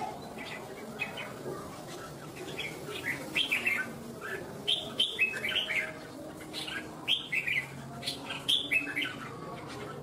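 Caged red-whiskered bulbul singing in bursts of quick, high chirping notes, with short gaps between phrases.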